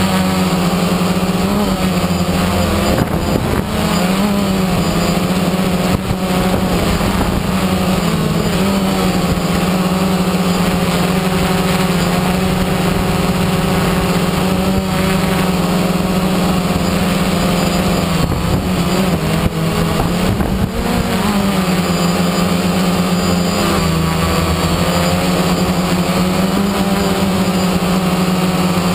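DJI Phantom 1 quadcopter's four electric motors and propellers running in flight, heard from the camera mounted on the drone. It is a steady whine whose pitch wavers briefly about three seconds in and again about two-thirds of the way through as the motors change speed.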